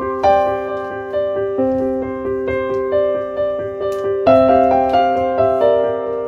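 Background piano music: a gentle melody of single notes played at an even, unhurried pace over a low accompaniment.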